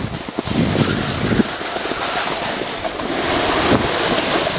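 Loud, gusty rushing of wind on the microphone on an open ski slope, rough and buffeting in the low end.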